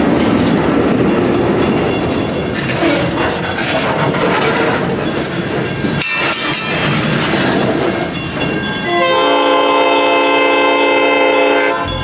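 Diesel switcher locomotive and train cars rolling past with dense rail noise, then the locomotive's air horn sounds a steady multi-note chord for about three seconds near the end.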